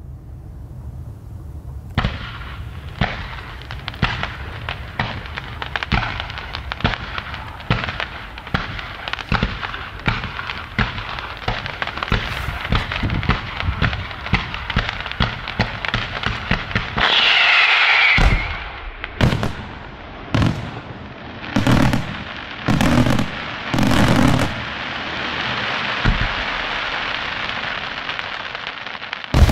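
Aerial fireworks display: from about two seconds in, a fast run of shell reports comes two or three a second. Near the middle there is a dense rush with a brief falling whistle, then a handful of heavier booms about a second apart. Near the end a steady crackling hiss takes over.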